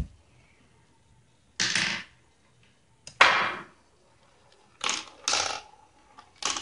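A marble rattling down a plastic marble run: five short clattering bursts as it drops and hits the pieces, the loudest about three seconds in.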